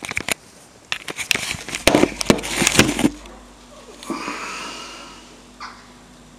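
Handling noise from a camera being moved and set down on a desk: a rapid run of knocks, rubs and clicks for about three seconds. Then a steady low hum continues, with a faint rustle and one more small click.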